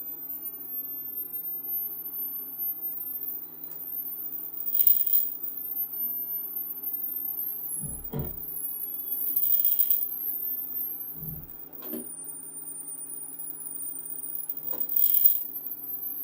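Experimental electronic noise from a no-input mixer and electromagnetic pickup: a steady low hum and thin, wavering very high feedback tones. A burst of hiss comes about every five seconds, with a couple of low thumps and a click near the middle.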